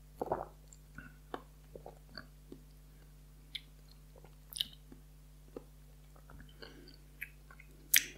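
Faint wet mouth sounds of a person tasting a sip of whisky: lips smacking and tongue clicking as the spirit is worked around the mouth, in scattered short clicks, with the loudest smack near the end.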